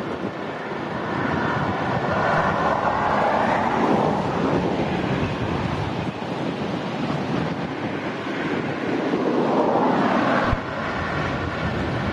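Gusty wind buffeting the microphone over the distant noise of a Boeing 787-9's jet engines, swelling twice. The sound drops suddenly about ten and a half seconds in.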